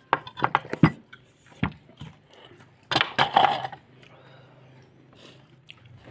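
Crispy fried food being bitten and chewed close to the microphone: a quick run of sharp crunches in the first second, a few single crunches after, then a longer noisy crunch about three seconds in.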